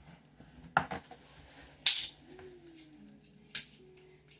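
Three sharp clicks from small plastic toy containers being handled, the loudest near the middle and the last just before the end.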